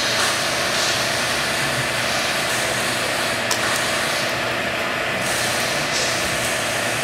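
Steady hum and hiss of a servo-hydraulic loading rig running as it cycles a CFRP-repaired prestressed concrete girder in a fatigue test.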